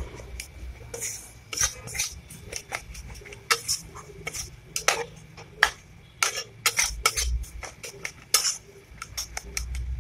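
Flat spatula scraping and knocking against a metal kadai as gram flour and ground spices are stirred and dry-roasted. The strokes come in irregular quick scrapes and taps.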